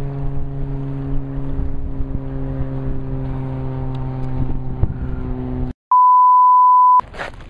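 A motorboat engine drones steadily, then cuts off suddenly. After a brief silence comes a loud, steady test-tone beep of about a second, the tone that goes with a colour-bar test card.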